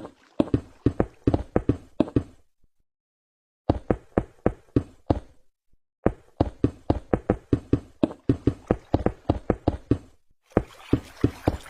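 Rapid knocking, about four to five sharp knocks a second, in runs that stop dead and start again twice, with a hissy noise under the last run.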